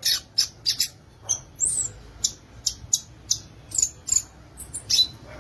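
Violaceous euphonia (gaturamo verdadeiro) singing a quick, uneven string of short, high, sharp notes, about fifteen in five seconds, with one slurred note about one and a half seconds in.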